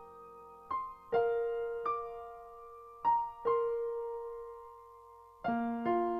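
Slow, soft background piano music: single notes about a second apart, each left to ring and fade, with a fuller chord about five and a half seconds in.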